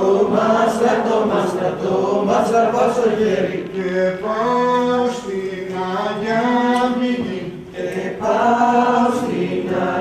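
A group of voices singing a Dodecanese folk dance tune together in long held phrases, breaking off briefly twice.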